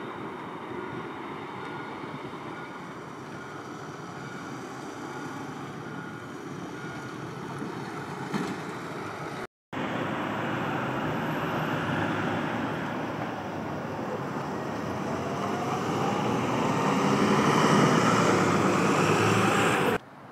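CAF Urbos 100 tram running steadily. After a cut, a tram's electric traction motors give a whine that rises in pitch and grows louder as it accelerates.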